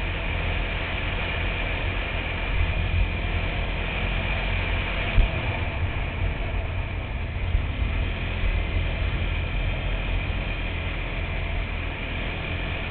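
ATV (quad bike) engine running while riding at speed, with heavy wind buffeting on the microphone. A single brief knock about five seconds in.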